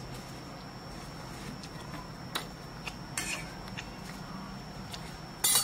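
Faint taps and clicks of cooking utensils at a clay wood-fired stove over a steady low hum, with a brief sharp burst of noise near the end.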